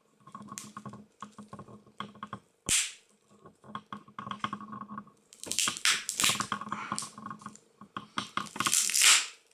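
Old Samsung mobile phone being smashed up: a run of small plastic clicks and cracks, one sharp knock a few seconds in, then longer spells of crunching and scraping.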